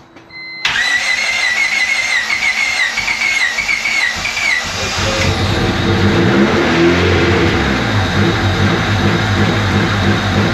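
Honda D15B non-VTEC four-cylinder engine being cranked by its starter with a pulsing whine for about four seconds, then catching and running with a lumpy note that sounds like it has a big cam. This is the first start on the stock ECU after the intake manifold was refitted.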